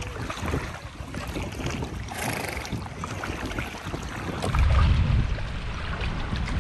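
Seawater sloshing and splashing around horses' legs as they wade in the shallows, with wind buffeting the microphone in a low rumble that is loudest a little past halfway through.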